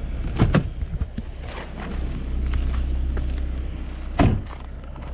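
Car door opened with a couple of sharp clicks, a low steady rumble, then the door shut with a single heavy thump about four seconds in.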